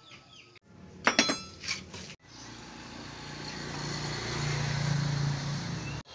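Broken ceramic floor-tile pieces clink and ring against each other in a quick run of sharp knocks about a second in. After that a steady mechanical hum grows louder for a few seconds.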